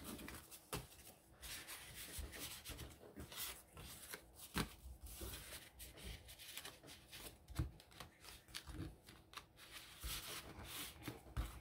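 Paper tags and cards being handled and slid into a paper journal pocket: faint, scattered rustling with light taps.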